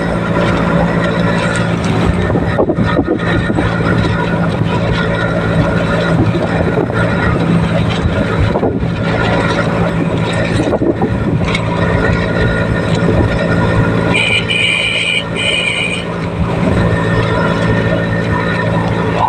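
An engine running steadily with a constant low hum. Near the end come two short high tones.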